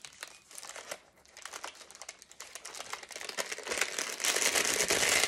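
Crinkling and rustling of parchment paper and deco mesh being handled and pressed down; it grows louder in the second half.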